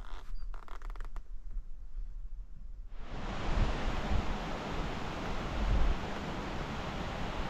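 Faint rustling and a few small clicks, then about three seconds in a steady rush of wind on the microphone starts abruptly, with gusty low buffeting.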